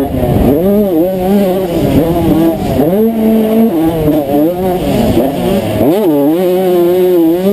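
1992 Honda CR125's single-cylinder two-stroke engine revving at race pace, heard close up from on board. Its pitch repeatedly climbs, holds and drops sharply with the throttle.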